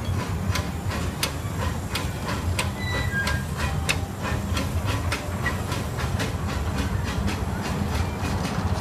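Grand Sierra miniature steam train riding along its track, heard from a passenger car: a steady low rumble with sharp clicks two to three times a second from the wheels running over the rail joints.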